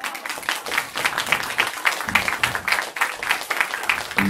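Audience applauding, many hands clapping densely and steadily. Music starts right at the end.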